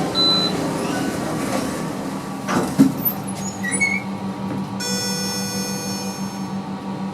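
ThyssenKrupp machine-room-less lift in operation: a steady low hum with a few short high squeaks and a knock, then a steady buzzing tone with many overtones coming in about five seconds in.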